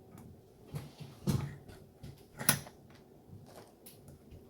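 Hard objects being handled and set down on a table: a few knocks and clunks, the loudest about one and a half and two and a half seconds in, with lighter ticks between.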